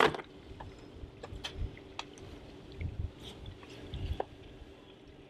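A sharp knock as a tool bag is handled on a boat's cabin roof, then small clicks of tools being picked out. Dull footsteps follow on the wooden side deck, over a faint steady hum.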